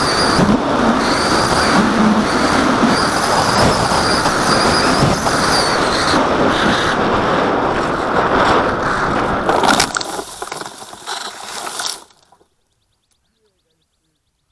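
Onboard-camera sound of an AXN foam FPV plane in flight: steady wind rush with the wavering high whine of its electric motor and propeller. About ten seconds in it turns uneven and quieter as the plane comes down into the wheat, and it cuts off suddenly a couple of seconds later.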